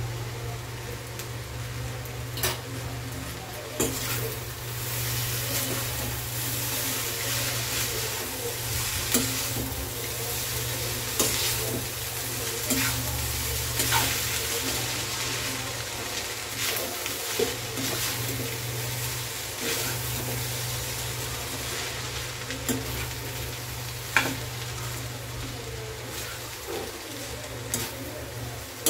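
Noodles and vegetables stir-frying in a stainless steel kadai: a steady sizzle, with a steel spatula scraping and knocking against the pan now and then.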